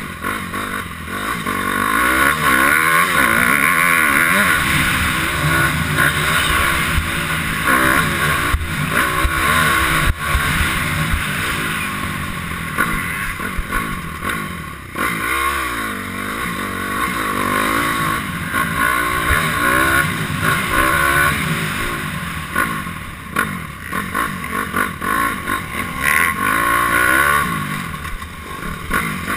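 Honda CRF250R's single-cylinder four-stroke engine being ridden hard on a motocross track, its revs rising and falling again and again as the rider accelerates, shifts and backs off for turns.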